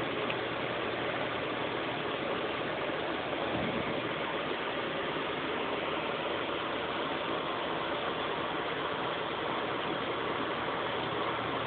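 Box fan running steadily: an even whooshing noise with a low motor hum underneath.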